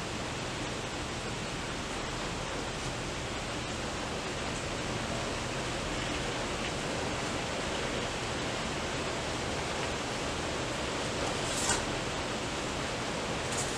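Steady hiss of background noise, with one short, faint tap near the end.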